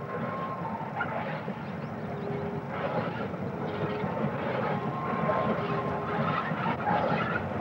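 LMS 'Black Five' 4-6-0 steam locomotive pulling away with its train, its exhaust beats and running noise growing steadily louder.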